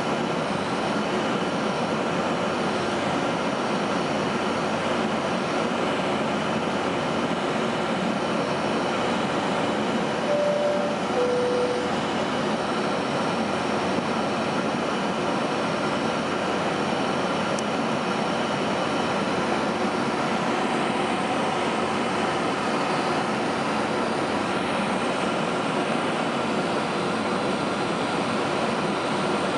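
Steady cabin noise of a Boeing 757-200 in flight, a constant rush of engine and airflow heard through the fuselage. A two-note chime, high then low, sounds once about ten seconds in.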